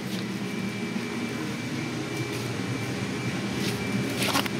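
Steady low mechanical hum with a faint high whine, and a short rustle a little past four seconds in.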